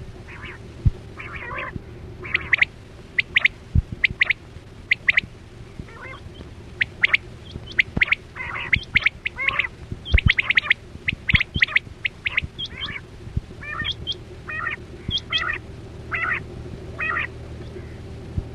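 Quail calling: many short, sharp calls repeated in quick irregular succession, some in quick doubles and triples, over a steady low hum with a few low thumps.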